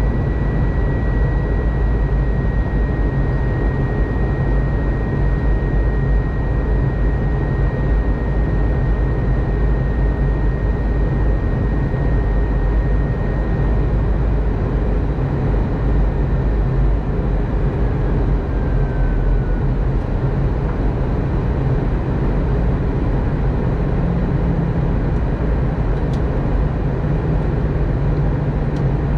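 Steady cabin noise of an Airbus A320 in flight, heard from a window seat over the wing: a deep engine drone under a rush of airflow. A thin high whine fades out about halfway through.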